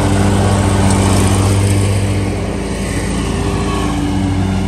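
Ferris stand-on commercial mower's engine running steadily at mowing speed, a constant low engine drone. It eases slightly about two seconds in as the mower heads away.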